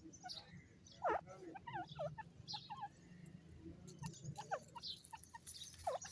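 Francolin (teetar) calling: a series of short, sharp notes that sweep down in pitch, the loudest about a second in and again near the end.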